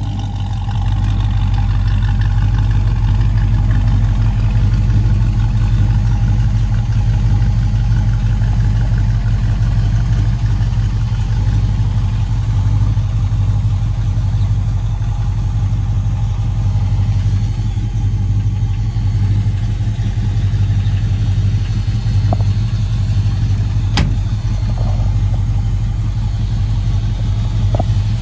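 1956 Ford F100 custom pickup's engine idling steadily through its exhaust, with a low, even note. A single sharp click sounds near the end.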